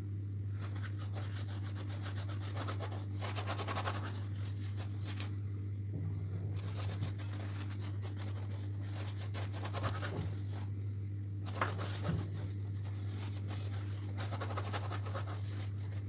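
Silicone pastry brush swishing and dabbing a wet butter-and-milk glaze over the crust of a baked loaf, in short irregular strokes with a couple of light clicks, over a steady low hum.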